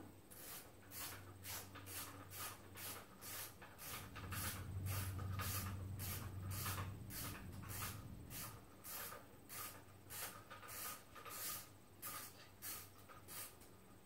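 Rhythmic scraping strokes of a hand tool working on the car, about two strokes a second, with a low steady hum beneath that swells for a few seconds in the middle.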